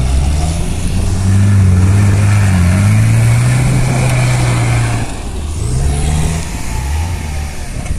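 Off-road SUV's engine revving hard under load as the vehicle claws through a sandy pit, wheels spinning and spraying sand. The revs climb and hold high for several seconds, drop about five seconds in, then rise again briefly.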